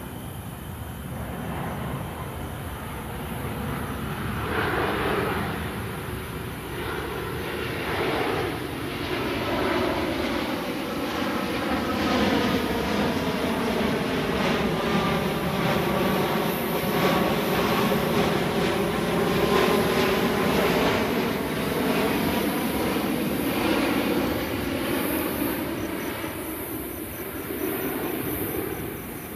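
Twin-engine jet airliner passing overhead on its landing approach. The jet engine noise builds to a peak about two-thirds of the way through, then fades as the aircraft moves away.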